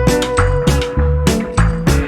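Background music with a steady, upbeat drum beat and a held melody.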